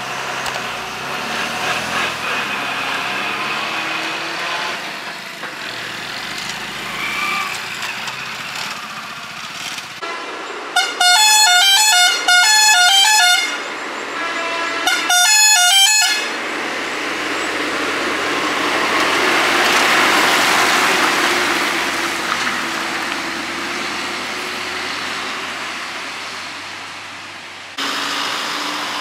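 Heavy vehicle engines on a hilly hairpin road. Twice, about 11 and 15 seconds in, a truck's musical horn plays a loud tune of stepping notes. Then the truck's engine and tyre noise swells as it comes round the bend.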